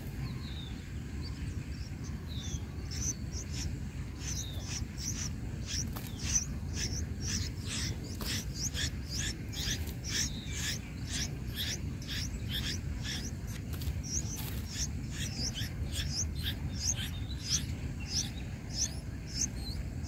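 Nestling songbirds begging for food with rapid, high-pitched chirps, sparse at first and coming several a second from about six seconds in, over a low steady rumble.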